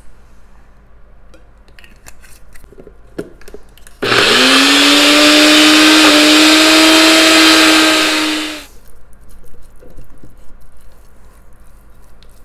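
NutriBullet personal blender motor running for about four and a half seconds, blending thick basil pesto after more olive oil has been added. It spins up to a steady pitch within a moment of starting, then cuts off. Before it come faint clicks and taps as the cup is handled.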